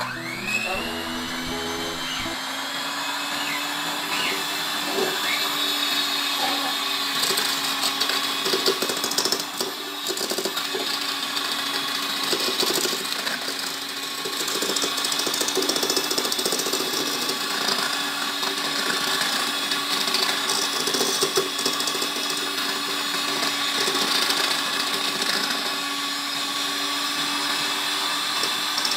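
Electric hand mixer switched on at its second speed: the motor spins up in a short rising whine, then runs steadily, beating eggs and sugar in a stainless steel bowl, with scattered clicks from the beaters.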